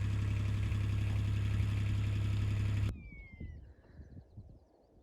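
A vehicle engine idling steadily, cutting off abruptly about three seconds in. Then faint outdoor birdsong, with one falling whistled call.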